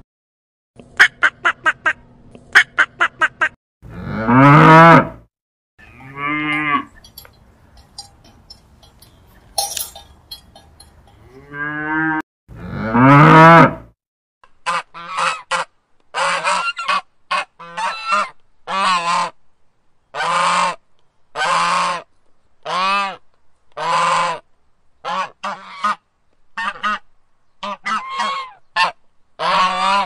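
Geese and ducks calling. A quick run of short calls comes first, then a few long drawn-out honks, then a steady series of short honking calls, one or two a second, through the second half.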